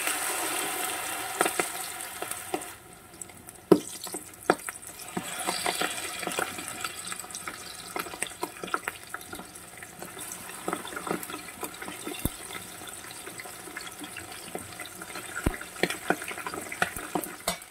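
Flour-coated frog pieces deep-frying in hot cooking oil in a wok: a steady sizzle, loudest as the pieces go in, with frequent sharp crackles and pops of spattering oil.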